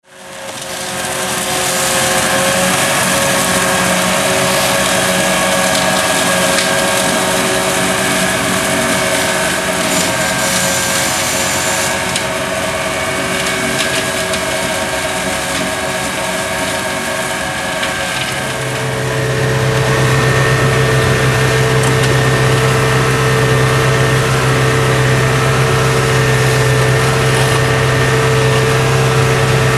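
McConnel PA7700T reach-arm hedge and verge mower running, its tractor engine and hydraulically driven 1.2 m Multicut hammer-flail rotor steady under load while cutting roadside growth. About 18 seconds in the sound changes to a steadier, deeper hum, heard from inside the tractor cab.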